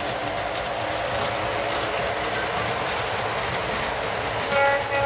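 Model train cars rolling steadily along the track, a continuous wheel rumble, with the model diesel locomotive's horn sounding briefly near the end.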